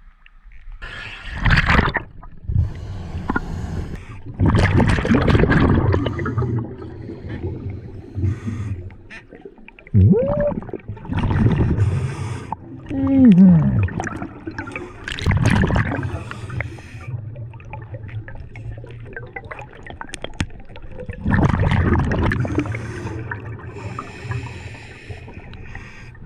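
Scuba diver breathing through a regulator underwater: the exhaled bubbles rush out in loud surges every few seconds, with quieter stretches in between. Two short gliding tones come in near the middle.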